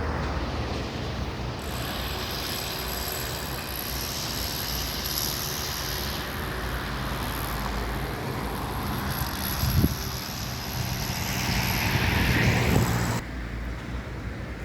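Steady outdoor vehicle engine noise with a thin high whine over it, a short knock about ten seconds in, growing louder about twelve seconds in and then dropping away suddenly.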